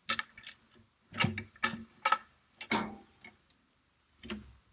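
A series of irregular sharp knocks and clicks, about six of them, each short and sudden, with quiet gaps between.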